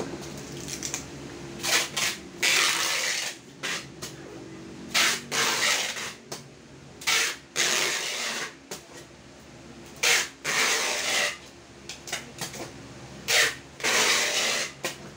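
Packing tape being run off a handheld tape-gun dispenser onto a cardboard box: a series of loud ripping screeches, each lasting from under a second to over a second, as strip after strip is laid to seal the box.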